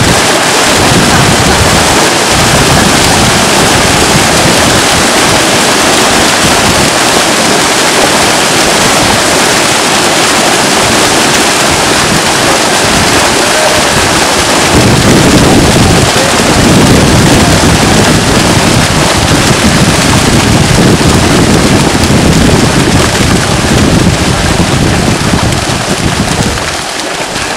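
Dense, loud splashing of a mass of fish thrashing at the surface of the water inside a hauled-in seine net, with a heavier low rumble from about halfway through.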